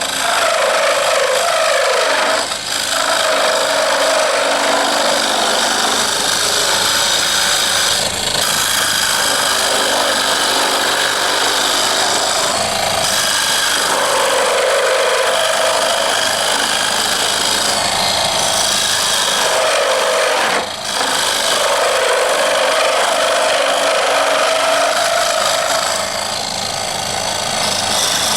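Wood lathe running while a turning tool cuts a spinning wooden knife-handle blank: a steady scraping hiss over a low motor hum, broken by a few brief drops when the tool comes off the wood.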